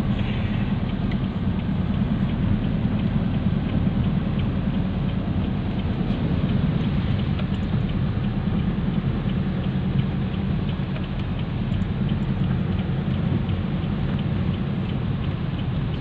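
Rain pattering on a moving vehicle's roof and windshield in many small ticks, over the steady low rumble of the engine and tyres on the wet road, heard from inside the cabin.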